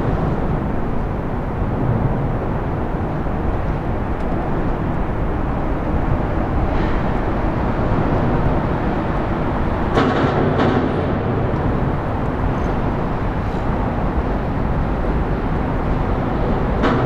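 Steady noise of a jetfoil hydrofoil running foilborne across the harbour, its gas turbines driving water jets. There is a brief louder rush about ten seconds in.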